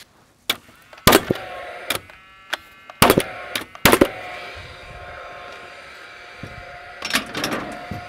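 Paslode XP cordless framing nailer, combustion-driven by a fuel cell and battery, firing nails through a 2x4 brace into wooden truss chords: several sharp shots in the first four seconds and a few more about seven seconds in.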